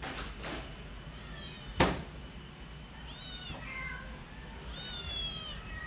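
Shelter cats meowing from their cages: a few separate high-pitched meows, a faint one early, then clearer ones about three and five seconds in. A single sharp knock about two seconds in is the loudest sound.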